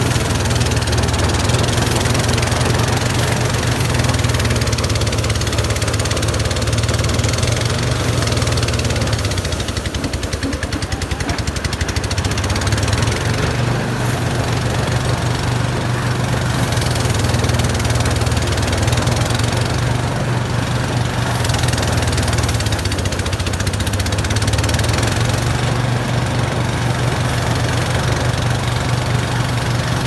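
Engine-driven portable rice thresher running steadily as rice stalks are fed into it, a low engine hum under a dense rushing noise. The level dips slightly for a moment about ten seconds in.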